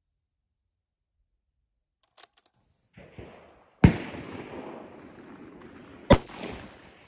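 Two 6mm Creedmoor rifle shots about two seconds apart, each followed by a long rolling echo. A few faint clicks come before the first shot.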